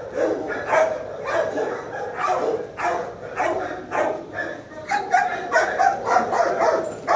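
Dogs barking over and over in a shelter kennel, a string of sharp barks roughly two to three a second.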